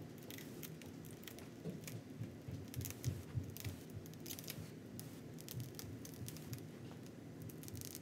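Clear protective plastic film being peeled off a PC case's glass side panel: faint, irregular crackling and crinkling as the film lifts away, with a few soft thumps of handling around the middle.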